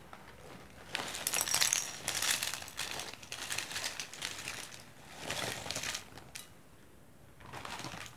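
Foil-lined plastic snack packet crinkling and rustling while crunchy crackers are tipped out of it and clatter into a glass bowl, in several bursts.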